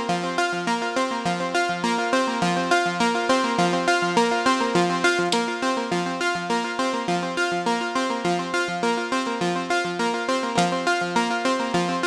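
Dave Smith Instruments Pro 2 synthesizer playing a fast, repeating sequence of short pitched notes, run through a Tegeler Vari Tube Compressor that is compressing it.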